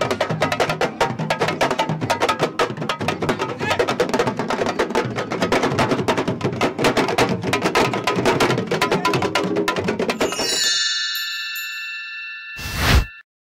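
Fast, dense drumming, sabar drums of Senegalese wrestling, which stops about eleven seconds in. A channel logo sting follows: a few held chime-like tones, then a whoosh that swells to the loudest point just before the end and cuts off abruptly.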